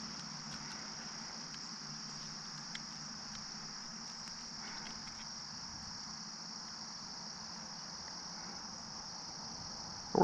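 Steady high-pitched chorus of insects singing, with a few faint small ticks.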